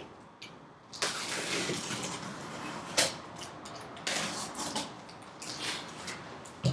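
Box cutter blade slicing along the packing tape on a cardboard box: two long rasping scrapes, with a sharp click between them about three seconds in.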